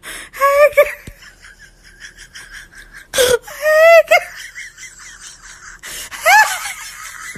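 A toddler laughing and squealing in a high voice, in three short bursts: about half a second in, around three to four seconds in, and about six seconds in.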